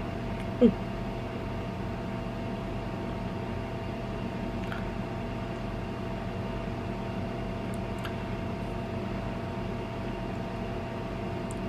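Steady machine hum, like a running appliance or fan, with a constant mid-pitched tone over a low drone; a few faint ticks here and there.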